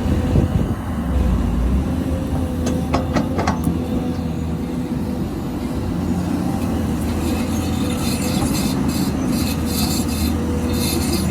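XCMG XE215C crawler excavator's diesel engine running steadily under hydraulic load, with a few sharp metallic clinks about three seconds in and a rougher hiss joining in from about halfway.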